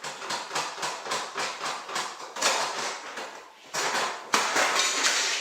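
Rapid repeated knocking and clattering of hard objects, about five knocks a second, louder in the second half.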